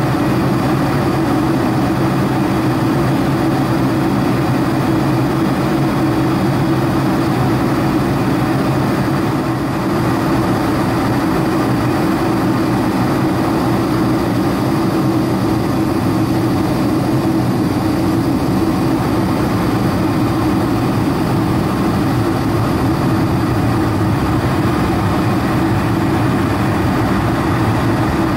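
Steady cabin noise of a Boeing 747-400 in flight, heard from a window seat over the wing: the drone of its General Electric turbofan engines mixed with rushing airflow and a constant low hum.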